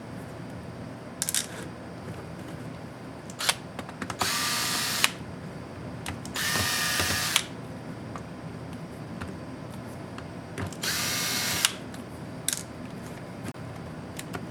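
Small electric screwdriver spinning out laptop case screws in three short runs of about a second each, a whining motor, with a few light clicks of the tool and screws being handled in between.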